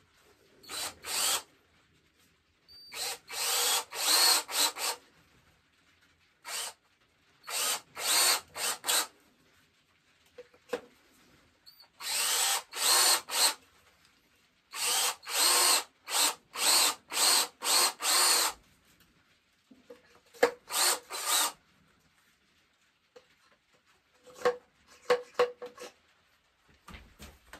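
Cordless drill boring the spout hole into the solid tip of a powder horn. It runs in short trigger bursts, several quick pulses at a time, with pauses between the groups while the hole is checked.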